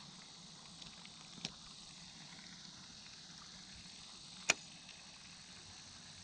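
Quiet pond-side background with a faint steady hiss, broken by a small click about one and a half seconds in and a sharper click about four and a half seconds in, from handling a spinning rod and reel.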